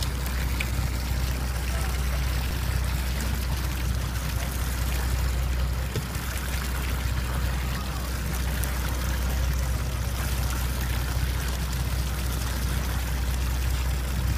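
Fishing boat's engine running with a steady low drone, with water washing and splashing against the wooden hull.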